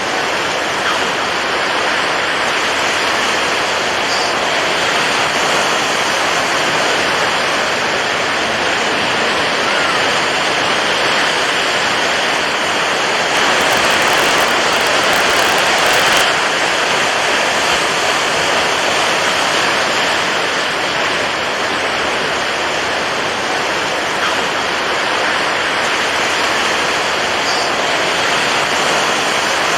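Steady rushing water of waves, an even wash of noise that swells a little about halfway through.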